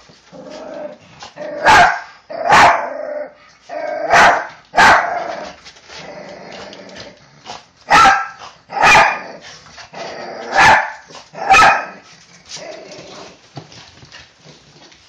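Two small house dogs, a toy poodle–Pomeranian mix and a Chihuahua, excitedly greeting someone at the door: sharp barks in pairs, about eight in all, with softer whining between them, dying down near the end.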